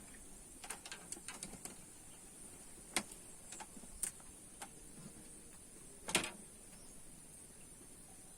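Scattered light clicks and taps: a quick cluster about a second in, then single sharper clicks around three, four and six seconds in, over a steady faint high hiss.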